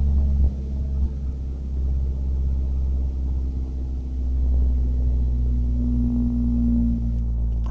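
1991 Ford Ranger's engine running steadily, its level dropping about half a second in and rising a little again near the middle.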